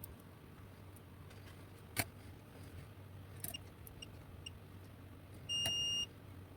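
A single electronic beep at one steady high pitch, lasting about half a second, near the end. Earlier there is one sharp click about two seconds in and a few faint ticks from handling parts on the bench.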